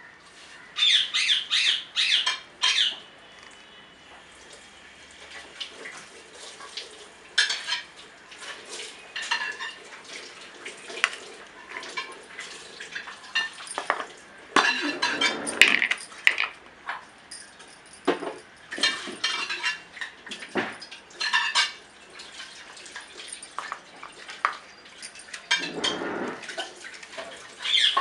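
Hands rubbing turmeric onto raw surmai fish steaks in a steel plate: irregular scrapes, clinks and taps of fingers and fish pieces against the metal plate and a ceramic spice plate.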